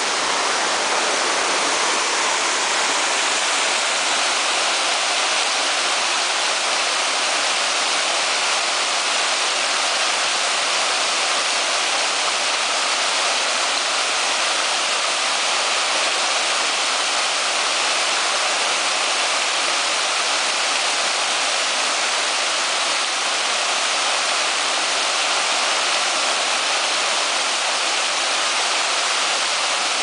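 Multi-step waterfall pouring down rock ledges into its plunge pool: a steady, unbroken rush of falling water.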